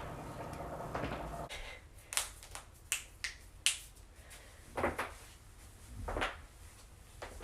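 Joints cracking: a run of short, sharp pops, about eight or nine, the crispest ones coming close together between two and four seconds in, then a few duller pops spaced out toward the end.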